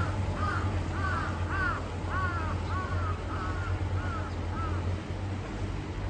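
Crow cawing in a quick run of about ten caws, roughly two a second, stopping about five seconds in, over a low steady hum.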